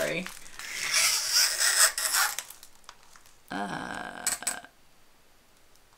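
Crinkling and rubbing of the clear plastic sheet over a diamond painting canvas as it is handled and smoothed to lay a measuring tape across it. About three and a half seconds in comes a brief pitched sound followed by a few clicks.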